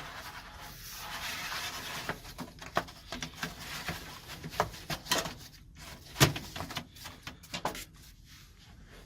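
A cardboard-framed 14x20x1 HVAC air filter being handled and slid into its slot, with rustling and scraping for the first couple of seconds. Then come a series of irregular knocks and clicks as it seats, the loudest about six seconds in.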